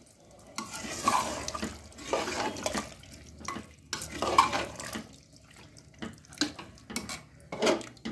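A steel ladle stirs watery chickpea gravy in an aluminium pressure cooker. The liquid sloshes in several swells, and a few short knocks near the end are the ladle striking the pot.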